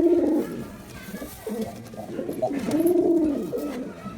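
Male domestic pigeon cooing: a coo right at the start, then a longer coo that rises and falls in pitch in the second half.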